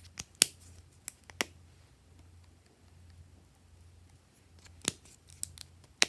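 Sharp plastic clicks and snaps as a star-shaped multi-colour marker is handled, about half a dozen in the first second and a half and a few more near the end.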